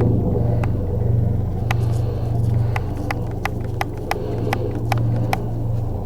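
Low, steady rumble of a helicopter flying overhead at a distance, with a run of short, sharp ticks through the middle seconds.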